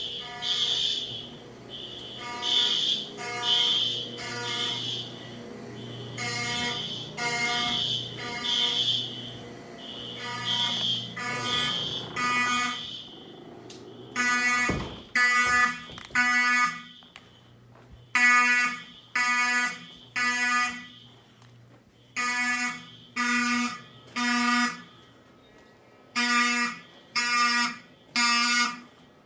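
Fire alarm horns sounding the temporal-3 evacuation code: three short buzzy blasts, then a pause, repeating about every four seconds. In the first half, a second alarm's higher tone overlaps out of step.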